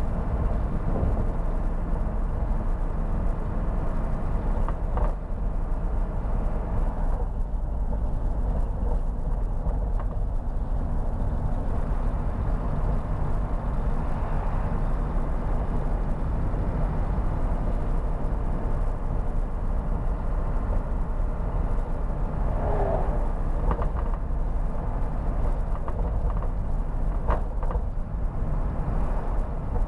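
Mercedes-Benz Atego truck's diesel engine running steadily under way, with tyre and road noise, heard from inside the cab.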